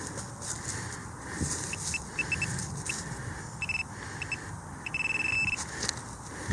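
Handheld metal-detecting pinpointer giving short high beeps of a single pitch, a quick run of them and then one longer held tone, as it closes in on a target in dug-out soil. Wind buffets the microphone with a low rumble throughout.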